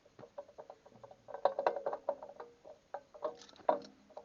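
Steel bolt and collar clinking and scraping against each other in quick, irregular taps, some with a short metallic ring, as the bolt is worked at the collar's hole. The bolt will not go through because it is in the wrong hole.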